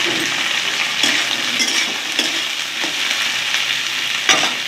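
Chopped okra frying in hot oil in a kadhai, a steady sizzle as it is stirred. Now and then a click of the stirring utensil on the pan, with a sharp knock near the end.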